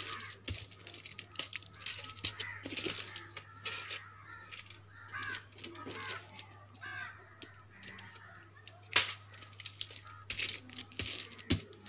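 Aluminium foil crinkling and rustling in irregular crackles as it is pressed and smoothed by hand onto a glued cardboard backing, with a sharp tap about nine seconds in.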